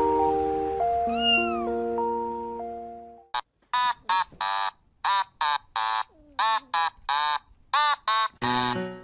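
Music ends about three seconds in. A rapid run of short, high-pitched animal cries follows, about ten in five seconds, each rising and falling in pitch, with music coming back in near the end.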